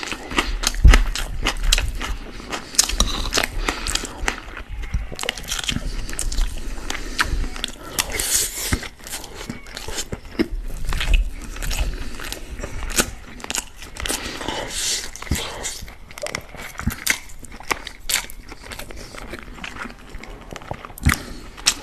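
Close-miked chewing and wet mouth sounds of someone eating chicken kabsa (spiced rice with chicken), with irregular crackly clicks and a metal spoon scraping and clinking against a glass bowl as rice is scooped up.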